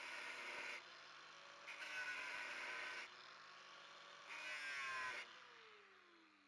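Angle grinder cutting into the steel inner race of an old wheel bearing left on the hub: three cutting passes of about a second each, with the motor running lighter in between. Near the end it is switched off and winds down in a falling whine.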